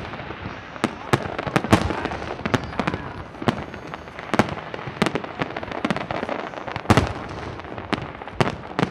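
Fireworks display: a rapid, irregular string of shell bursts and bangs over a constant rumble and crackle, with one especially loud bang about seven seconds in.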